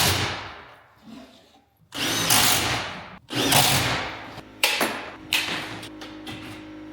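Power drill driving screws into sheet metal in several short bursts of about a second each, the loudest three near the start, about two seconds in and about three and a half seconds in, followed by shorter ones.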